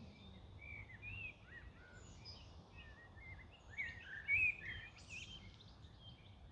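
Small birds singing: a string of short chirps and warbling notes, busiest a little past the middle, over a faint steady outdoor background noise.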